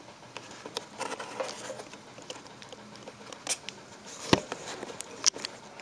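Handling noise of a camera being set down and positioned: scattered clicks and light knocks, the sharpest about four seconds in and another just after five.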